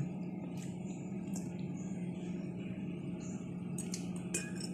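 Steady low background hum of a small room, with a few faint light ticks, several of them close together near the end.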